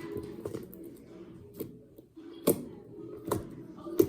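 Slime being squished and pressed by hand, giving sharp sticky clicks and air-bubble pops at irregular intervals, about one a second.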